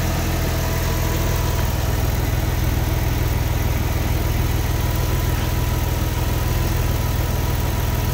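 Porsche engine idling steadily with an even low pulse, heard from under the car near the exhaust pipes and oil pan.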